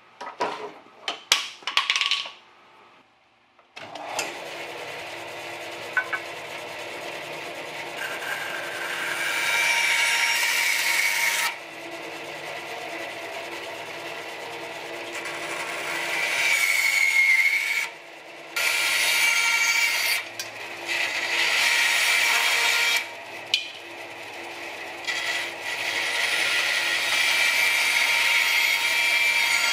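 A few sharp knocks and clicks of hand tools on a wooden workbench, then an Oliver 35 bandsaw running steadily. The blade cuts through a small block of wood four times, the sound growing louder and brighter during each cut and dropping back to the motor's hum between cuts.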